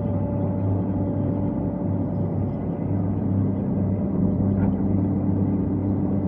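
Excavator's diesel engine running steadily under hydraulic load, heard from inside the cab while the boom and bucket are worked; its hum changes a little as the controls are moved.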